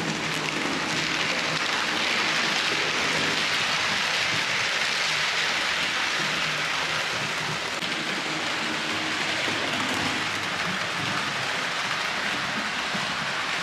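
H0-scale model EU44 electric locomotive and passenger coaches running on model track, the wheels rolling over the rails in a steady hiss with a faint low rumble. It swells about two to six seconds in as the train passes close.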